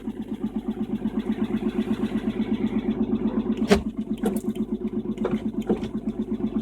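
BMW 325i's straight-six engine idling cold with a fast, even hammering rattle. The owner puts the rattle down to the VANOS. A few sharp knocks come through, the loudest about three and a half seconds in.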